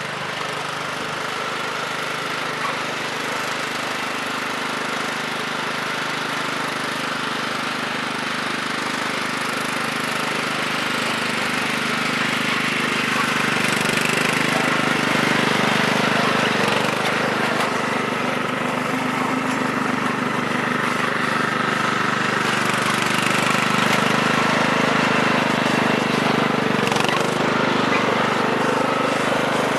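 A Craftsman riding mower's 15 hp Kohler Command OHV engine running steadily under load as the mower is driven. The engine grows somewhat louder about halfway through.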